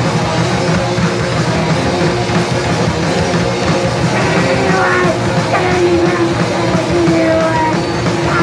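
A punk rock band playing loudly live, with electric guitars, bass and drums.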